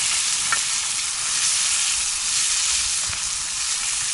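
Meat and fried potatoes sizzling steadily in hot fat in a sadzh (saj) pan over a campfire.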